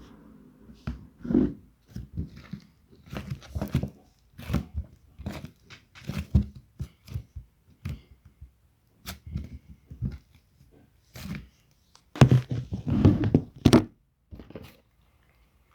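Slime being squeezed and poked by hand, giving irregular wet clicks and squelches, thickest and loudest about three-quarters of the way through.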